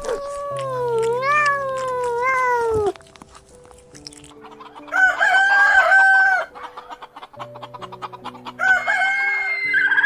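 A long cat meow that rises and falls in pitch and stops abruptly after about three seconds. About five seconds in a rooster crows, the loudest sound here, and a shorter call follows near the end. Background music plays underneath.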